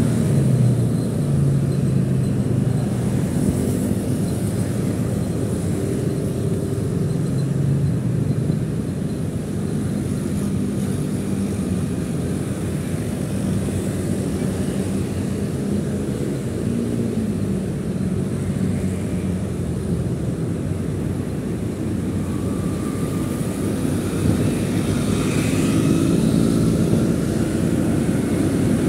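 Motorcycle engine running while being ridden, a steady drone whose pitch rises and falls slightly with the throttle.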